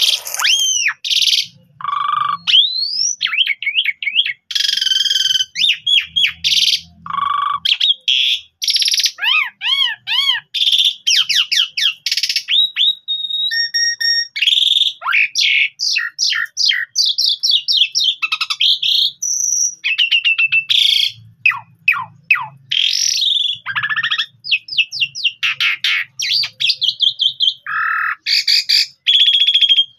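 Javan pied starling (jalak suren) in full song: a long, unbroken, varied song of rapid rising and falling whistles mixed with harsh, buzzy notes.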